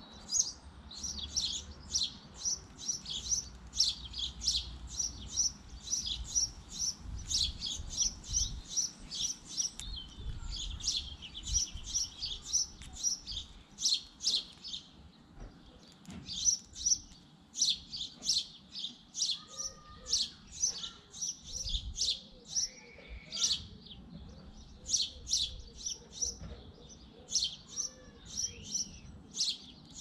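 Sparrows chirping: a rapid, near-continuous run of short high chirps, with a few brief pauses.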